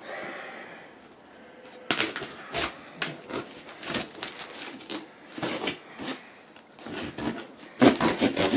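Plastic-wrapped cardboard shipping box being handled and turned over: a soft rub at first, then from about two seconds in a quick irregular run of crinkles, taps and scrapes of plastic wrap and cardboard under the hands.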